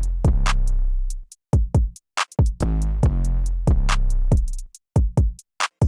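Electronic intro music with a drum-machine beat and deep bass, broken by short gaps of silence between phrases.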